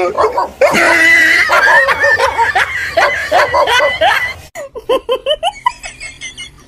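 A dog barking rapidly and repeatedly, stopping about four seconds in. Quieter short bursts of laughter follow.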